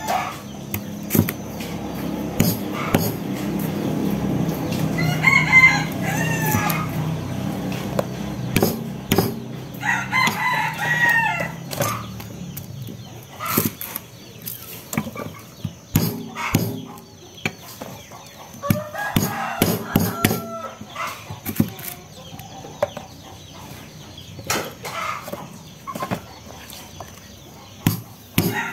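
Lemongrass stalks being smashed, a run of irregular sharp knocks, while chickens call several times, a rooster crowing and hens clucking.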